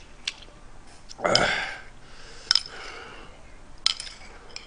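A person eating spicy ramen stew. About a second in there is a loud, breathy mouth sound with a falling pitch, and several sharp clicks of metal chopsticks and spoon come against the dishes.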